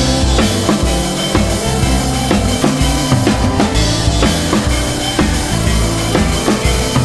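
Background music with a steady drum-kit beat: bass drum, snare and rimshots over a pitched bass line.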